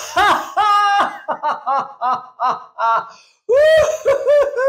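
A man laughing deliberately, for no reason, as a wellness exercise: a quick run of short "ha" pulses, about five a second, that trails off, then after a brief pause a long, loud laugh breaks out again near the end.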